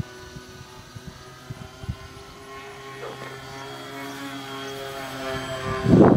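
Twin brushless electric motors with 8x4 counter-rotating propellers whining steadily as a small RC plane flies. The sound grows louder as the plane approaches, and a loud rush of noise comes near the end as it passes almost directly overhead.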